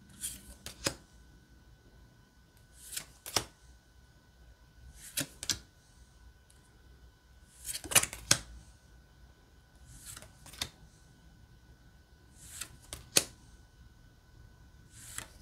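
Small thin-stock playing cards being pulled one at a time from the front of a hand-held deck and snapped against the others: a short double snap of card on card about every two to three seconds, seven times.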